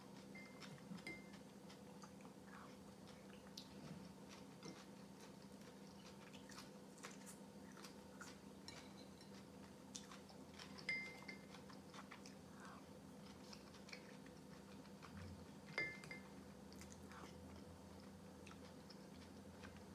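Soft chewing and mouth sounds of someone eating cold beet soup with boiled egg, with light clicks of a spoon against a ceramic bowl; two sharper clinks ring briefly about 11 and 16 seconds in.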